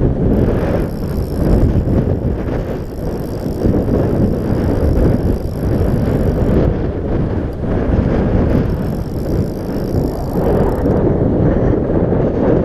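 Wind buffeting the microphone over a rushing river: a loud, low, uneven rumble. A faint high whine runs through much of it, cutting out a little past halfway, returning, and stopping again near the end.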